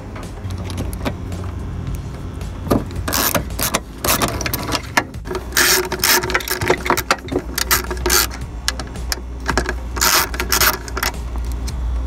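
A socket ratchet clicking in irregular runs as it loosens a seat belt anchor bolt, with metal tool clinks, over a steady low rumble.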